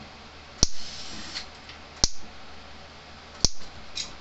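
Cyclops Brute electric fence charger (10 joules stored, 8 output) arcing across a small spark gap between the ground lead and the fence terminal. Three sharp snaps come about a second and a half apart, one with each output pulse, from a charger putting out around 10,000 volts.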